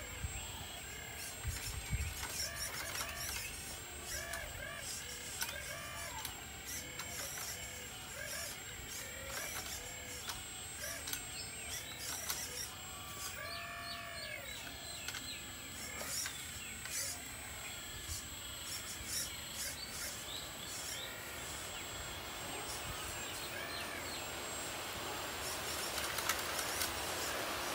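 Birds chirping and calling repeatedly in short rising-and-falling notes, over a faint steady hiss that grows louder over the last few seconds.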